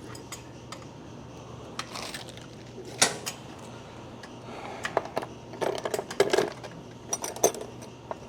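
Metal hand tools clinking and clattering as wrenches are sorted and picked up, in scattered knocks with the loudest about three seconds in and a busier run from about five seconds on, over a steady low hum.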